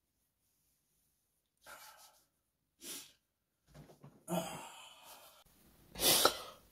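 A few short, soft sighs and rustles from a person just woken up and sitting on a bed. Near the end comes a louder brief handling noise as the phone filming is picked up.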